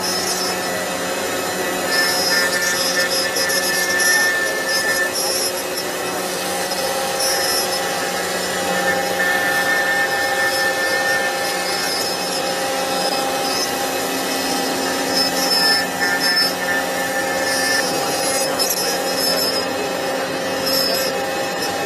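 CNC router spindle running with its bit cutting into the material: a steady machine whine of several held tones, some coming and going, over the rasp of the cut.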